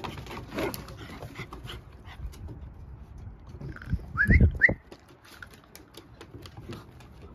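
Moyen poodle puppies on a wooden deck: light clicks and taps throughout, and two short rising yips about four and a half seconds in, the loudest moment.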